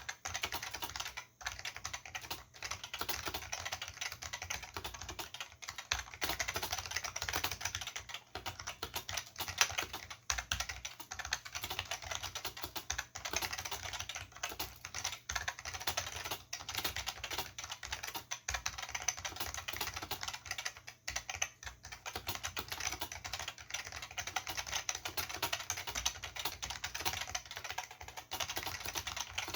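Continuous fast typing on an Olivetti M15 vintage XT keyboard with Futaba MA mechanical switches and PBT keycaps: a dense stream of key clicks, broken only by a few brief pauses.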